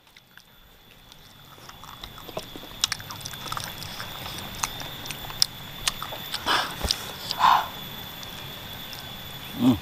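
Close-miked eating sounds of a person gnawing chicken feet in meatball soup: wet lip smacks, sharp mouth clicks, sucking and chewing. Two louder short wet sounds come about six and a half and seven and a half seconds in, and a brief hum from the eater comes at the very end.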